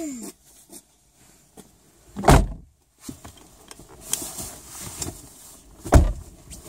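Two car doors slamming shut, one about two seconds in and another about three and a half seconds later, with small knocks and rustling in between as passengers climb into the seats.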